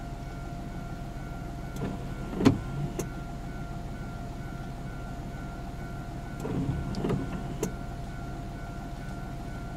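Japanese railway level-crossing alarm ringing a steady two-note tone over a low hum. A sharp knock comes about two and a half seconds in, and a short cluster of knocks follows around seven seconds.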